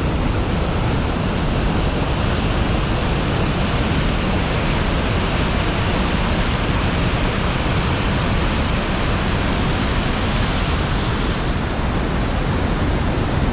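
Iguazu Falls: a loud, steady rush of heavy falling water, even and unbroken.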